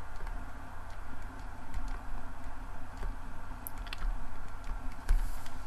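Small irregular ticks and clicks of a stylus on a tablet as a word is handwritten, over a steady low hum.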